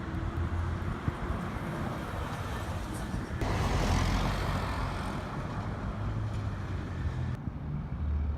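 Road traffic: vehicle engines and tyres running past steadily, with a louder pass beginning about three and a half seconds in. Its hiss cuts off abruptly near the end.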